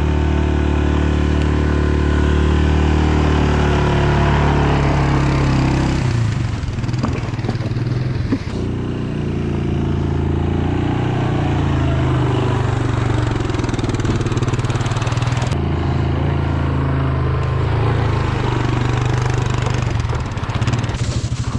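Small engine running steadily at a constant speed, its pitch shifting abruptly a few times.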